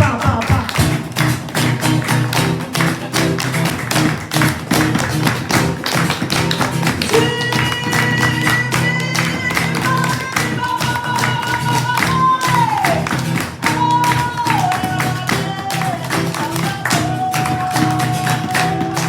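Live acoustic music: a steady rhythm of strummed, tapping strokes over sustained low notes, joined about seven seconds in by a held wordless melody line that steps and slides down between long notes.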